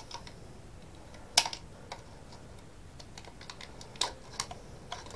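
Light, irregular clicks and taps of a plastic extractor fan housing and its cable being handled, with the sharpest click about a second and a half in.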